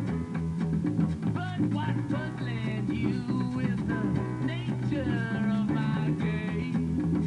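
Music: a band piece with guitar, a bass line and a beat, with a melody line that bends in pitch.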